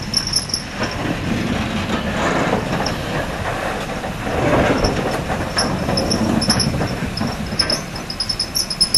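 BR Standard Class 4MT 2-6-0 steam locomotive running slowly tender-first past at close range, its wheels and motion rumbling on the rails. The rumble swells about halfway through, and short high squeaks and sharp clanks come more often near the end.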